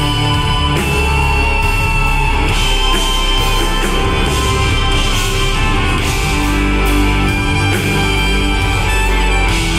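Progressive rock band playing live: electric guitars, bass, keyboards and drums, with a held high lead note that shifts pitch a few times over steady bass and repeated cymbal crashes.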